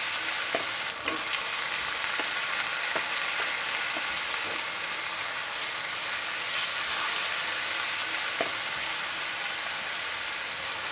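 Chopped raw rooster meat sizzling in hot oil on a base of fried onions and tomatoes in a cooking pot: a steady hiss, with a few faint clicks.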